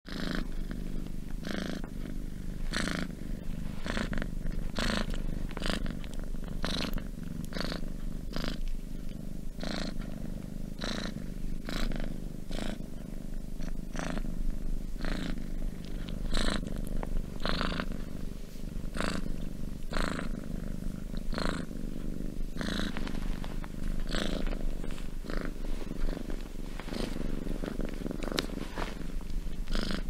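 Domestic cat purring steadily and close up, with a breathy hiss recurring about once a second.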